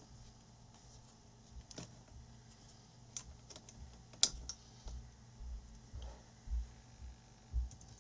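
Scattered key presses on a laptop keyboard: a few separate clicks, with one sharp loud one about four seconds in, then soft low bumps in the second half.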